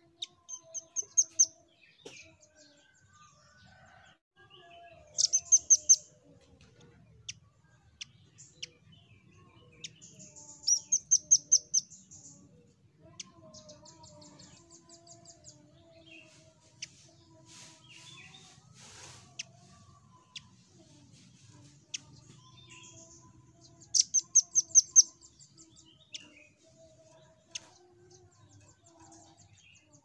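Nuthatch (rambatan) singing: four loud, quick runs of clipped high notes, a few notes each, with softer scattered chirps between them.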